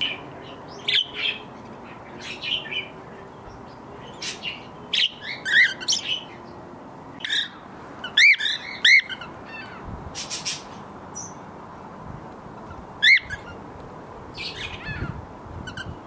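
Cockatiels chirping and calling in short, scattered bursts, with a few harsher squawks among them. The loudest are two arched calls about eight seconds in and a single sharp call about thirteen seconds in.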